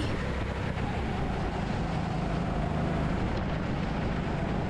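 Racing kart engine running hard under acceleration, a steady mechanical drone with rushing wind noise.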